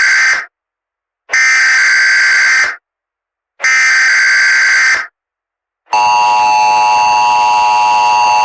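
Emergency Alert System tones: the screeching data bursts of the SAME header, the first already under way and two more each about a second and a half long, separated by short gaps of silence. About six seconds in, the steady two-tone EAS attention signal begins.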